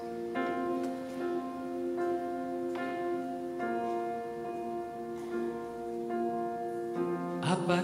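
Grand piano playing a slow instrumental interlude: sustained chords struck about once a second and left to ring. A singing voice comes in right at the end.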